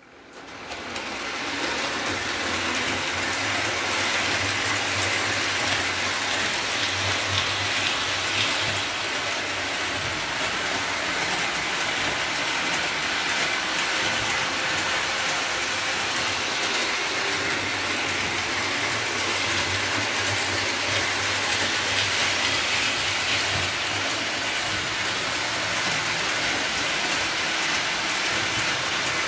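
O-gauge MTH Rail King Crusader locomotive and its passenger cars running along three-rail tubular track: a steady rolling rumble and rush of metal wheels and the DC can motor. The motor is powered from the AC track through a bridge rectifier in the tender.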